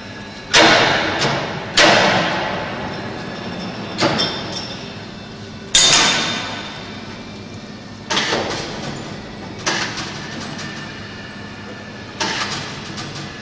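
A series of about seven loud metal clanks and bangs at uneven intervals, each ringing off over a second or so.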